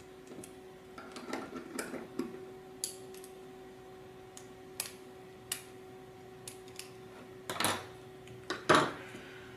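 Light, scattered clicks and scrapes of a small Phillips screwdriver tightening an M2 screw and nut through a plastic panel. Near the end come a couple of louder plastic handling knocks and rustles, over a faint steady hum.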